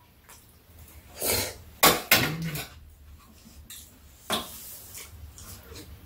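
Metal spoon and chopsticks clinking and scraping against bowls during a meal, a handful of separate sharp taps about one, two and four seconds in.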